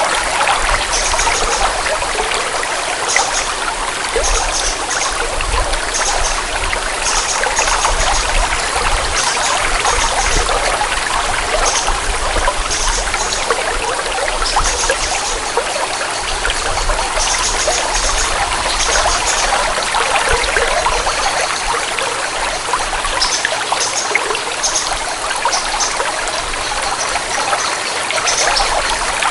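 Water flowing and trickling steadily, as in a forest stream, with short high-pitched chirps coming and going over it.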